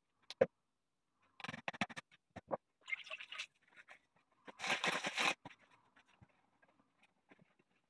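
Hand work on a felt hat body on a wooden block: separate sharp knocks and clicks of metal tools and pliers handled and set on the table, with scratching on the felt. A louder rustle of a cloth being handled comes around the middle.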